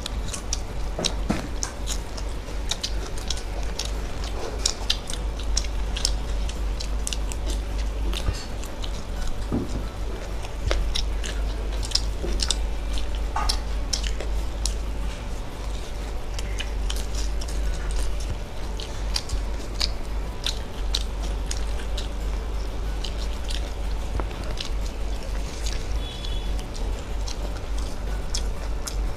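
Two people chewing and biting into deep-fried pakoras close to the microphone: irregular crunches, smacks and wet clicks of chewing, with a steady low hum underneath.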